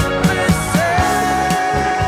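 Late-1970s soft rock studio recording with drums, bass and keyboards keeping a steady beat. About a second in, a high lead note slides up and holds.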